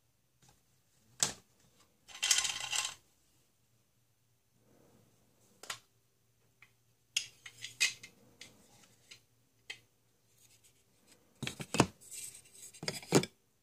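Hard plastic toy eggs and small plastic toys clicking and clattering against each other as hands dig through a box of them. There is a short rustle about two seconds in, and a quick run of sharp clicks near the end.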